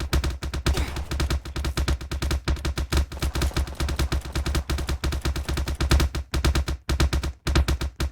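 Rapid, uneven run of sharp clap-like clicks, many a second, with brief breaks about six and seven and a half seconds in.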